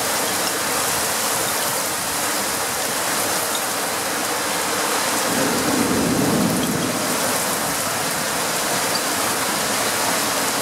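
Heavy rain falling steadily in a thunderstorm downpour. A brief low rumble swells and fades about halfway through.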